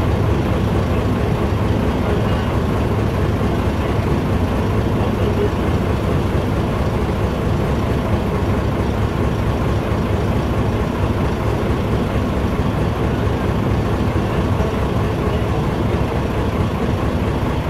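A boat engine running steadily and loudly, heard from on board the moving tour boat.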